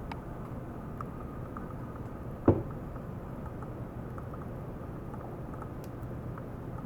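A small water pump running with a steady low hum over flowing, circulating water, with faint scattered ticks. One sharp knock stands out about two and a half seconds in.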